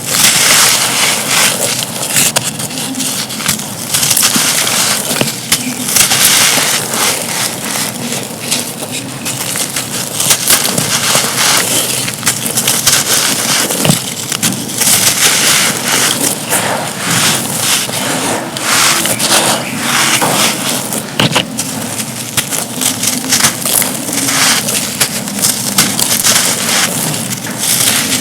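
Dry, soft, gritty cups being crumbled with both hands: a continuous loud crunching and crackling of the brittle material breaking into dusty grit.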